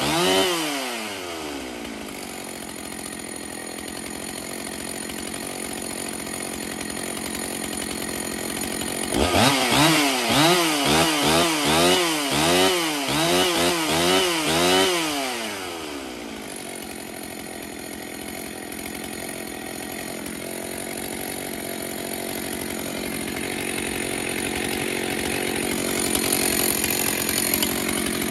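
Husqvarna 61 chainsaw's two-stroke engine idling, with a string of quick throttle blips rising and falling in the middle before settling back to idle. The chain keeps turning at idle, which the owner puts down to worn clutch springs.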